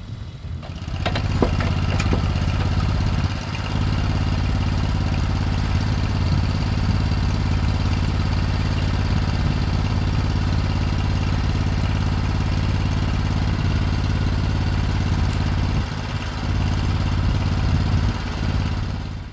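An engine running steadily close by. It starts about a second in and stops just before the end, dipping briefly twice along the way.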